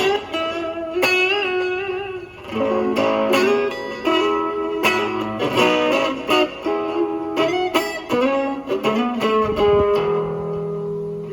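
Electric guitar played through a Fender Champion 20 amplifier: single-note lines with bent and wavering notes, mixed with plucked chords.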